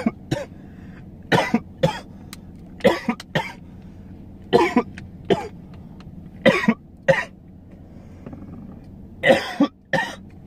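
A man coughing repeatedly from blunt smoke, in short harsh pairs of coughs every second or two.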